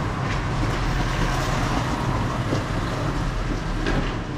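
Automatic coffee vending machine running as it prepares a drink: a steady mechanical whir and hum with a few light clicks.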